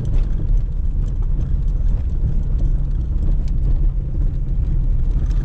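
Car being driven, heard from inside the cabin: a steady low rumble of engine and road noise, with faint scattered ticks and rattles.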